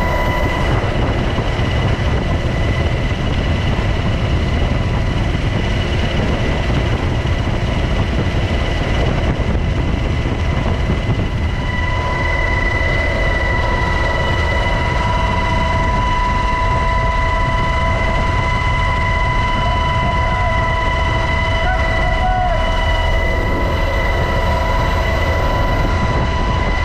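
UH-60 Black Hawk helicopter running: a steady, dense rumble with a constant high whine over it, the whine growing stronger about halfway through.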